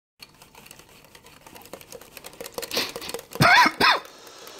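A wire whisk beating marinade in a glass bowl: a fast run of light clicks that grows louder. About three seconds in, a man's voice breaks in with a few short, loud bursts.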